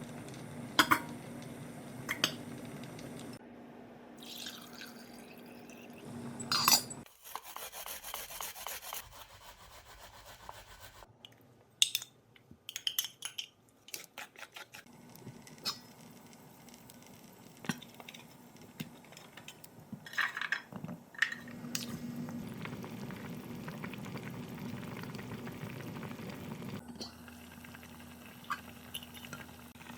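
Kitchen cooking sounds: utensils clinking against pots and bowls, with liquid being poured, dripping and stirred. There are sharp clinks scattered through, a stretch of even rushing about a quarter of the way in, and a steady low hiss in the second half.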